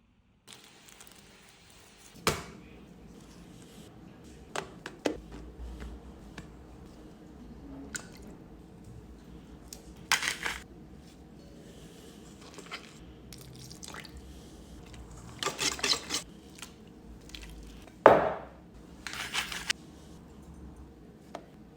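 Kitchen prep handling of raw chicken: scattered sharp clinks and knocks of bowls and utensils, with softer wet squishing and rustling between them.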